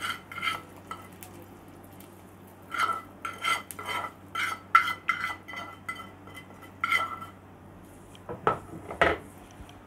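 Steel spoon scraping and clinking against a small metal tadka pan as hot tempering is spooned out, an irregular run of ringing metallic clinks, thickest in the middle. Near the end come two duller knocks.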